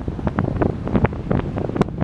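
Typhoon wind buffeting the microphone: a steady low rumble broken by frequent short, irregular crackles and knocks.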